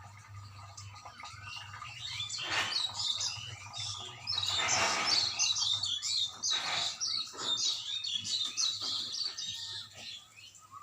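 Many small birds chirping rapidly over one another, with several louder, harsh, noisy bursts mixed in; the longest lasts about a second near the middle. A steady low hum runs underneath.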